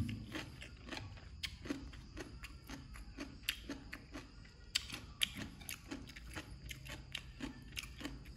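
Close-miked chewing of crunchy papaya salad: irregular wet clicks and crunches of a mouth eating, a few per second.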